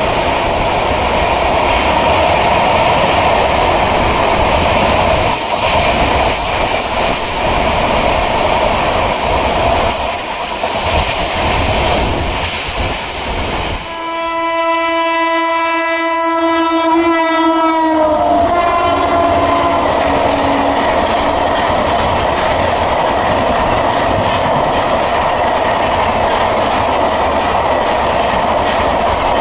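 Indian Railways express passenger trains running past at speed, the wheels rumbling and clattering on the rails. About fourteen seconds in, a locomotive horn sounds one long steady blast for about four seconds and drops in pitch as the locomotive passes. The coaches of a second train then rush by.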